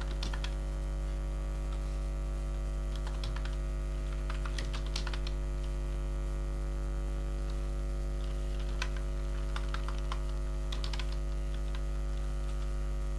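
Computer keyboard typed on in a few short bursts of key clicks, over a steady electrical hum.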